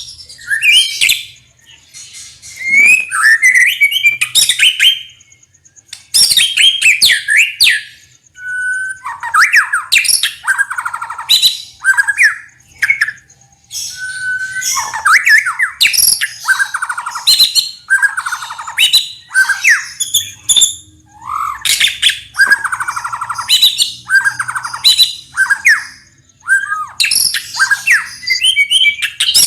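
White-rumped shama (murai batu) singing loud, varied song phrases in quick succession, broken by short pauses, mixing whistled notes with fast rattling 'ketrekan' passages and sharp chirps.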